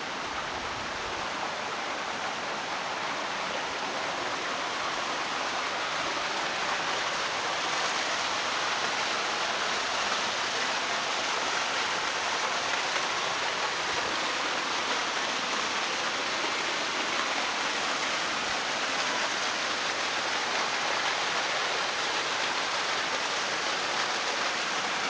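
Steady hiss of running and falling water in a rain-fed gorge creek, growing a little louder over the first few seconds.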